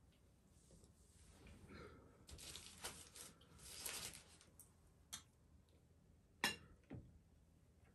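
Metal ladle scooping soup from a pot and pouring it into a bowl, a soft splashing pour in the middle, then a sharp clink and a smaller one near the end as the ladle knocks against the pot.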